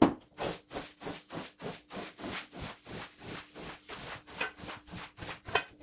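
Long-handled scrub brush scrubbing a wet, soapy rug in quick, even strokes, about four a second, sped up. The first stroke at the start is the loudest.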